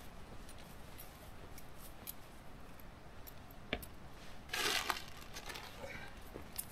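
A person walking over grassy ground, with faint rustling and crinkling of clothing and a carried bag; a single sharp click about halfway through, then a louder burst of rustling.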